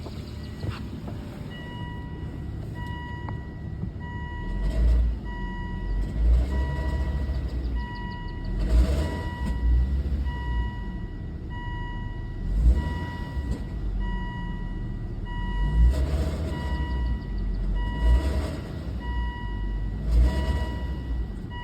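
A 2003 Volvo V70 making repeated low growling bursts every two to three seconds, the louder ones with a higher rasping edge, the growling and screeching the owner is recording as a fault. An electronic chime beeps steadily about once a second.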